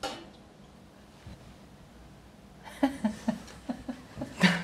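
Quiet room tone for about the first two and a half seconds, then a few people laughing in short bursts.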